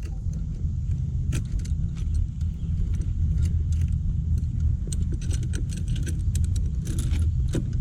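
Drive chain clinking and rattling in quick irregular clicks as it is worked back onto its sprocket by hand, over a steady low rumble.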